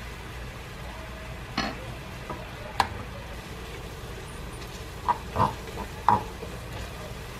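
Cooking in a pan: a utensil stirring food, with a few sharp clicks and knocks against the pan over a low steady background.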